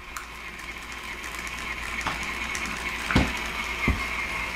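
Animated toy dachshund's small electric motor and gears whirring steadily, growing louder, with two brief louder sounds about three and four seconds in.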